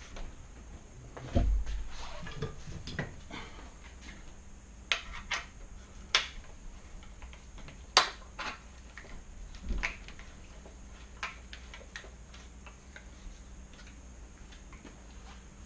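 Scattered metallic clinks, clicks and knocks of tools and hardware as a mountain bike's main rocker pivot is refitted, with a heavier knock about a second and a half in.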